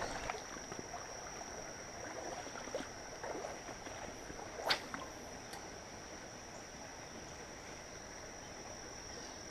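Insects keep up a steady, high-pitched drone over a faint wash of creek water. About halfway through comes a single quick swish.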